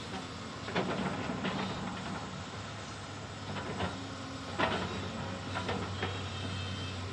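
Heavy diesel machinery engine running steadily at low idle, with several sharp metallic clanks scattered through.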